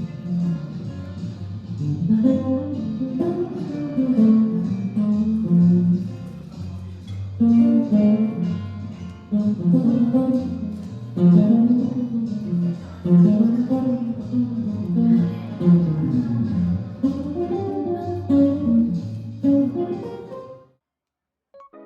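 Background music led by a picked guitar playing a repeating melodic line, cutting off abruptly just before the end.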